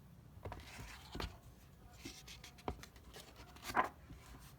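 A picture book's paper page being turned: rustling with a few short, soft knocks, the loudest near the end.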